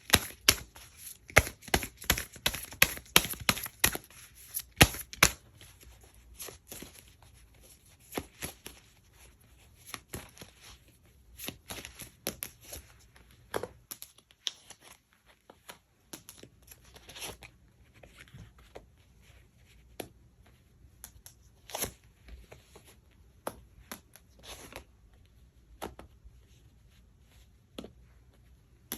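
Tarot cards being handled on a table: a quick run of snaps and flicks for about five seconds, then scattered single taps and light slides of cards.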